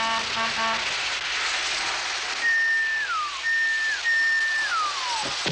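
Lionel O gauge model train running on its track with a steady rattling rumble. It gives two short horn blasts at the start, then three high whistles that each hold and then slide down in pitch.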